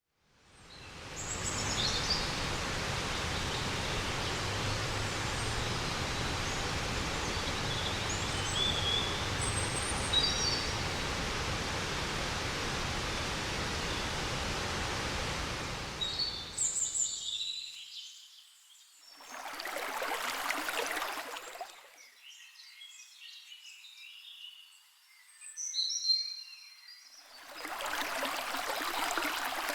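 Steady rush of a large waterfall in monsoon flood, the Dudhsagar Falls, with birds chirping over it. About halfway through, the rush cuts out twice for a few seconds at a time, leaving only the bird chirps, then comes back.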